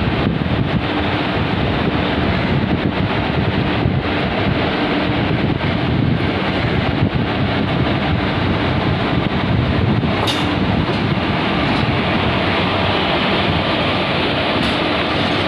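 WAP-4 electric locomotive hauling an express train slowly past at close range: a steady rumble of wheels and running gear with a faint hum, and wind on the microphone.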